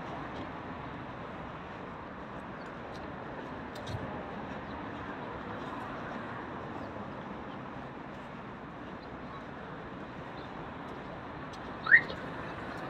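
Steady outdoor traffic and car-park noise. Near the end comes one short, sharp rising chirp, the loudest sound here.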